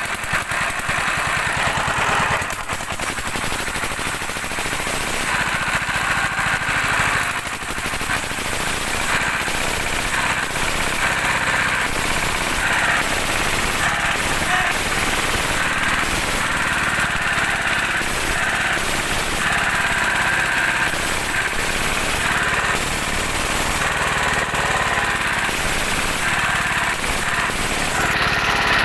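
Dompeng single-cylinder diesel engine running steadily with a rapid pulsing beat.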